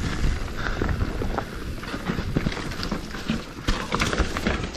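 Mountain bike being ridden down dirt singletrack: a steady rumble of tyres over the ground, with many short knocks and rattles from the bike over bumps.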